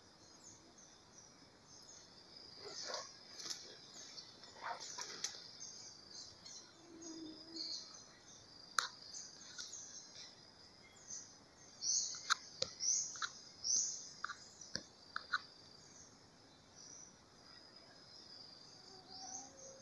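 Quiet forest ambience with scattered short, high-pitched chirps from small animals in the canopy over a faint steady insect hum. Three louder calls come close together a little past the middle, with a few sharp clicks here and there.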